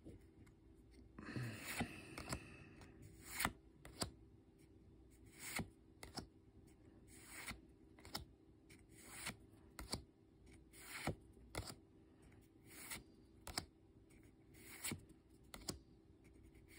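Faint handling of a stack of trading cards as they are flipped through one at a time: a soft slide or flick of card against card every second or so, often in pairs. There is a longer rustle about a second in.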